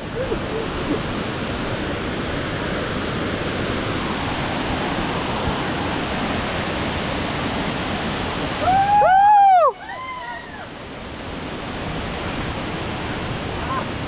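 Steady rush of a waterfall in heavy, forceful flow. About nine seconds in, a short loud call rises and falls over the water noise, followed by a fainter one.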